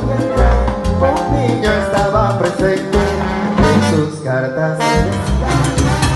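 Live salsa band playing, with timbales and hand percussion over bass, and trombones joining in strongly near the end.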